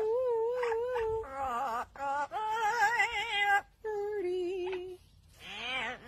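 Amazon parrot singing long held notes with a strong vibrato, in several phrases with short breaks between them.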